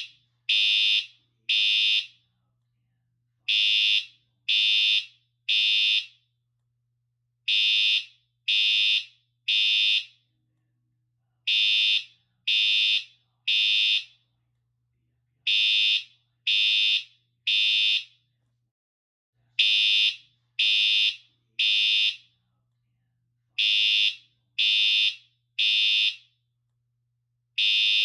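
Siemens U-MHU fire alarm horn sounding a high-pitched tone in groups of three short blasts with a pause after each group, repeating about every four seconds. This is the temporal-three pattern, the standard fire evacuation signal.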